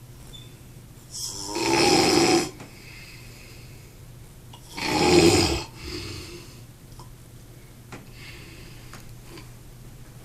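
A sleeper snoring: two loud snores, each about a second long, about a second in and about five seconds in, then a much fainter breath near the end.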